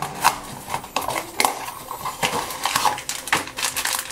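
A cardboard blind box being pulled open and the foil blind bag from inside it crinkled in the hands: an irregular run of sharp crinkles and clicks.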